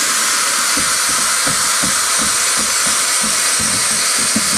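Veda WD-182 airbrush spraying paint in a wide pattern: a steady, loud hiss of compressed air from the compressor-fed brush.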